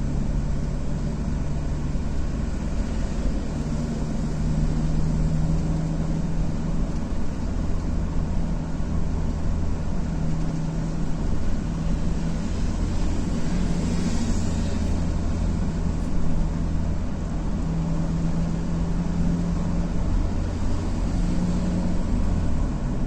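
Road vehicle noise: a steady low engine hum with tyre and road hiss, with a brief rise in high hiss about fourteen seconds in.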